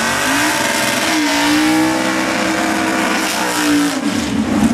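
Supercharged V8 of a 1955 Chevrolet drag car revving up over about a second and held at high revs through a burnout, its rear tyres spinning. The engine drops off sharply near the end.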